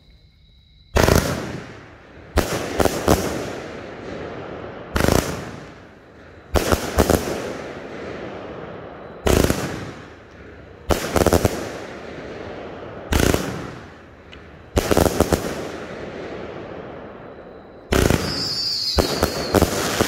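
Dynomite Fireworks Alter Ego, a 35-shot 500-gram consumer firework cake, firing. There is a shot every one and a half to two seconds, often in quick pairs, each a sharp bang with a long fading tail. Near the end a falling whistle sounds over the shots.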